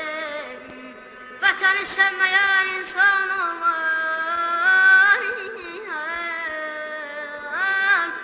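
A song: a voice singing long, wavering held notes over music, with a short break about a second in before the singing picks up again.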